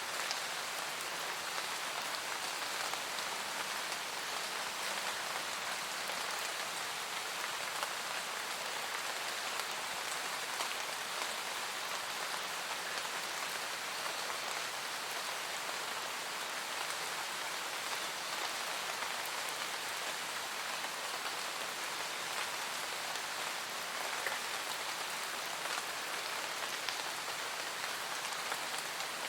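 Steady rain falling: an even, unbroken hiss of many drops with no thunder.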